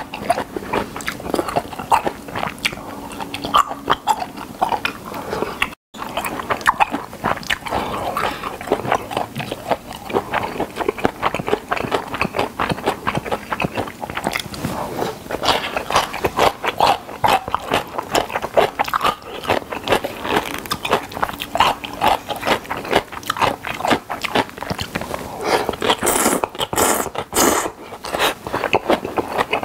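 A man chewing and slurping spicy whelk and somen noodles close to the microphone: a steady run of small bites and wet mouth sounds. The sound cuts out for a moment about six seconds in, and a few sharper, hissier sounds come near the end.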